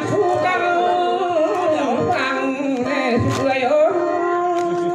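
Khặp Thái folk song of the Thai people of Thanh Hoá: a voice sings a wavering, ornamented melody over instrumental accompaniment.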